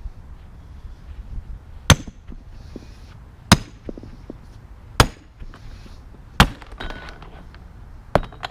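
Hammer blows against the hinge of a safe: five hard metal strikes about a second and a half apart, each with a short ring, that end up busting the hinge off.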